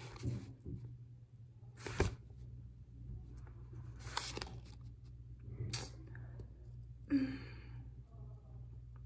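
Paper rustling as a thick stapled study-guide packet's pages are flipped and a printed worksheet is handled, in four short rustles about two seconds apart. A brief pitched sound comes about seven seconds in, over a faint steady low hum.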